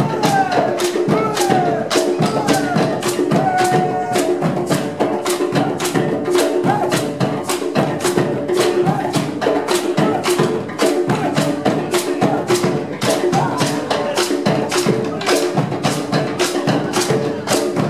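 Percussion ensemble of tall hand drums, struck by hand and with sticks, playing a dense, steady rhythmic groove together.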